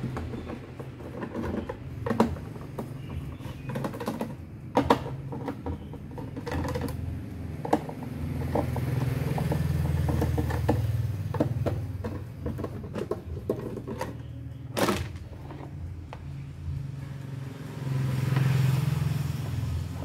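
Scattered clicks, knocks and light clatter of plastic parts and tools handled while opening the base of a Sharp air fryer. Under them runs a steady low engine drone that swells twice, about eight seconds in and near the end.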